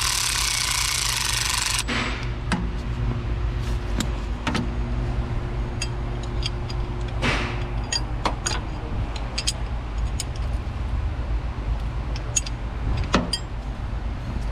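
Cordless power ratchet whirring as it runs a spark plug's threads down into the cylinder head, stopping suddenly about two seconds in. Then scattered clicks and metal taps of the ratchet and socket being handled, over a steady low hum.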